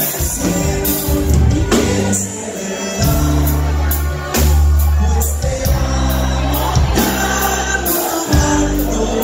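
Live band playing a song: a man sings lead over drums, a deep bass line and guitars.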